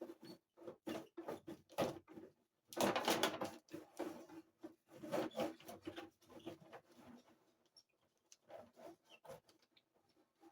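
Irregular plastic clicking and rattling from a 1990 Remco TMNT Subterranean Sewer Hockey tabletop game as its pieces are worked in play. The busiest bursts come about three and five seconds in.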